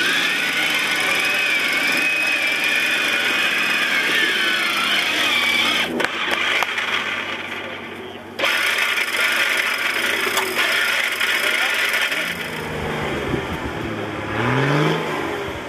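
Competition off-road 4x4 working up a steep slope: a high wavering whine for the first five seconds or so, then engine noise, with the revs rising twice near the end.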